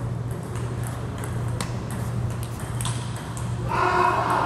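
Celluloid-style table tennis ball bouncing a few times with light, sharp pings as it is passed back between points, over a steady low hum in the hall.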